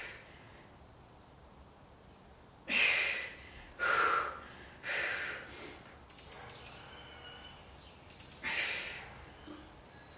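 A woman's heavy, forceful exhales from exertion during a core exercise: three sharp breaths out about a second apart, then a pause and a fourth near the end.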